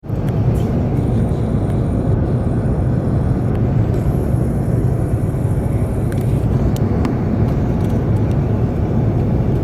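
Steady low rumble of cabin noise aboard an Airbus A380 in flight, engine and airflow noise heard from inside the upper-deck cabin, with a few faint clicks.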